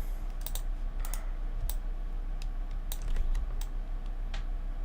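Computer keyboard being typed on in irregular taps, a dozen or so separate key clicks, over a low steady hum.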